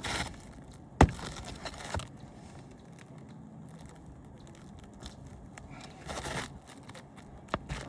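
Roofing nails being pried out from under an asphalt shingle tab: one sharp metal click about a second in, then faint scraping and crinkling of the shingle, with a few smaller clicks and a short scrape near the end.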